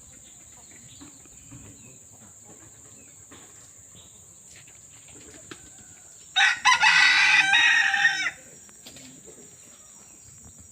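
A rooster crows once, a loud call of about two seconds, over a steady high drone of crickets.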